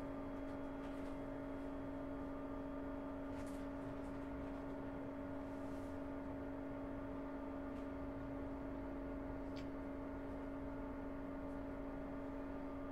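Steady electrical hum inside a Jubilee line 1996 Tube Stock carriage: two tones that hold one pitch throughout, over a low rumble with a few faint clicks.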